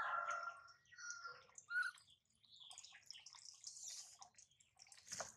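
Water running from a hose into a plastic tub, a faint splashing trickle, with a few faint bird chirps.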